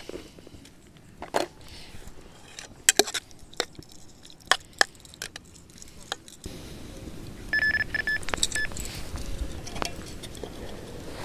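A metal spoon clinking and scraping against an aluminium camping pan of tinned spaghetti. Then, over wind noise, an electronic carp bite alarm gives a quick run of short, same-pitched bleeps, about eight seconds in.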